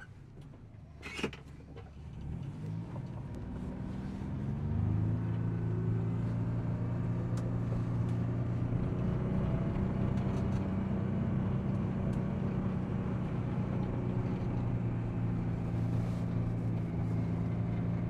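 John Deere Gator utility vehicle's engine, quiet at first with a sharp click about a second in, then revving up as it pulls away and settling into a steady drone while driving.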